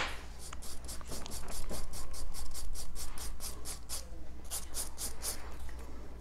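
Nail file rasping back and forth over a gel-polished fingernail in quick strokes, about four or five a second, with a short pause about two-thirds of the way through. The strokes are sanding off old gel polish down to the gel base coat.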